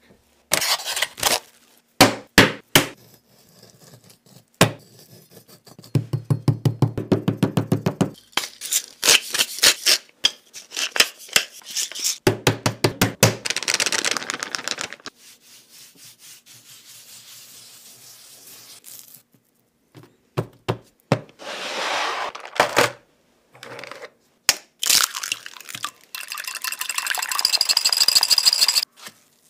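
Food-preparation sounds on a wooden cutting board: sharp knocks, a fast run of strokes on the board, and seasoning sprinkled over raw pork slices. Near the end, eggs are beaten in a glass bowl with a rapid clicking against the glass, which rings.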